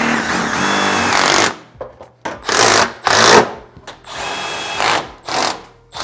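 Cordless driver running steadily as it drives a screw through the S-lock seam of galvanized sheet-metal ductwork, stopping about one and a half seconds in. Then comes a string of short scraping bursts as the sheet-metal panels are handled and pressed together.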